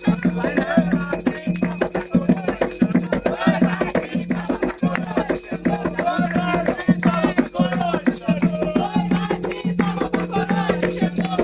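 Umbanda ceremonial music: voices singing a chant over dense, fast percussion with shaken rattles.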